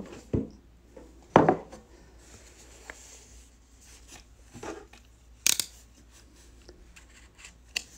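A handful of separate sharp clacks and knocks as a metal card tin with its lid and a small cardboard box are handled and set down on a table; the loudest come about a second and a half in and about five and a half seconds in.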